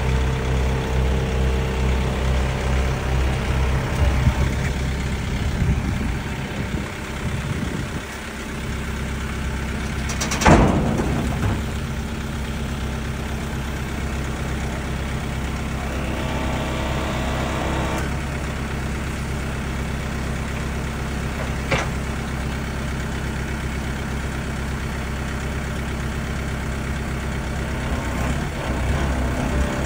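Mercedes Sprinter 413 tipper's diesel engine idling steadily, somewhat louder in the first few seconds, while the tipper body is lowered. There is one loud clunk about ten seconds in and a lighter click about two-thirds of the way through.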